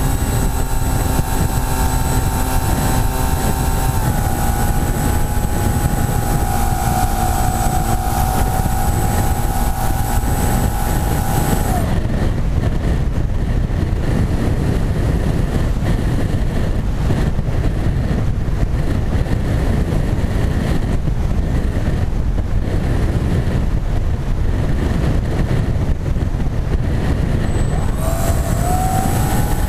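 Electric motor and propeller of a foam flying-wing model whining steadily, over heavy wind rush on the onboard camera. The motor cuts off about twelve seconds in, so the wing glides with only wind noise. Near the end it starts again with a rising whine.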